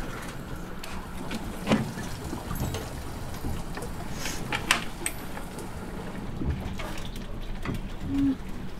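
Kitchen handling sounds: scattered clicks and knocks of pans and utensils being moved, over a low steady hum, with a brief low tone near the end.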